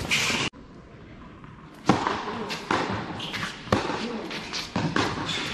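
Tennis rally on an indoor court: sharp racket strikes and ball bounces about a second apart, echoing in the hall, with faint voices in the background. The sound cuts off abruptly about half a second in and the hits resume nearly two seconds in.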